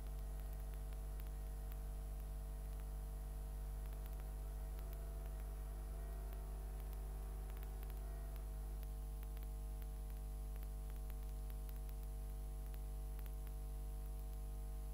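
Low, steady hum with a faint hiss, and faint music rising and fading in the middle.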